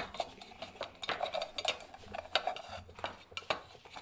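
Ribbed metal food can handled on a plywood bench: irregular clinks, light knocks and scrapes of the can as a wired high-voltage ignition transformer is fitted inside it, with a sharper knock right at the start.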